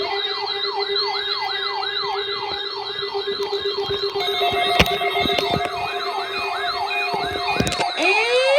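Electronic siren yelping, rapid rising sweeps about three a second over a steady lower tone; a second steady tone joins about halfway through, and a slow rising wail starts near the end.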